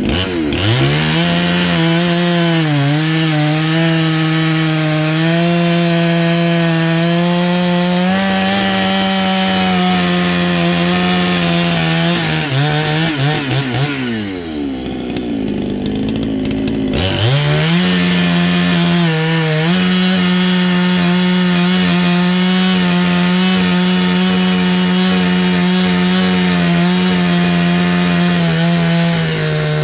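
Two-stroke petrol chainsaw with a tungsten chain running at full throttle as it cuts through logs. About halfway through the engine drops off to idle for a couple of seconds, then revs back up into the next cut, and it eases off again at the end.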